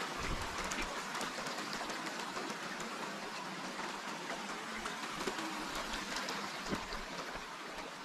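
Steady rushing hiss of water flowing down a narrow concrete irrigation channel, with a few faint ticks over it.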